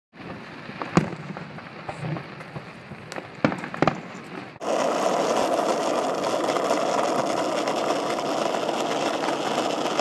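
Fireworks going off: several sharp bangs, the loudest about a second in and two more close together about three and a half seconds in, with smaller pops between. Then, after a sudden cut, a steady, loud rolling noise of skateboard wheels on pavement.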